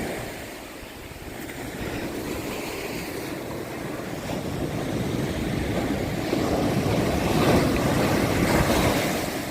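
Ocean surf washing on a beach, a steady hiss that swells slowly from about a second in to a peak near the end, with wind buffeting the microphone.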